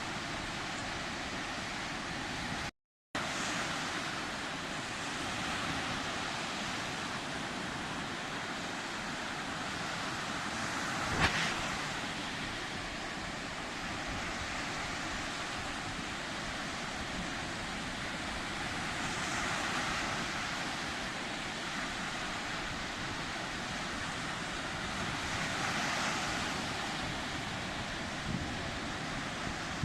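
Sea waves washing in as a steady rush of surf, swelling a little louder now and then. The sound cuts out for a moment about three seconds in, and a single sharp knock comes about eleven seconds in.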